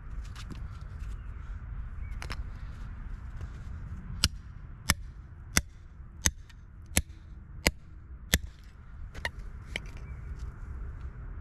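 A hammer striking a steel chisel set on a rock block, seven sharp blows about two-thirds of a second apart, splitting the rock open to look for fossils. A steady low rumble sits under the strikes.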